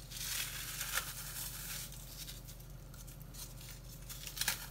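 Crackers crushed by hand and dropped into a slow cooker, with the plastic cracker sleeve crinkling: a crackly rustling, busiest in the first two seconds, with a few small clicks.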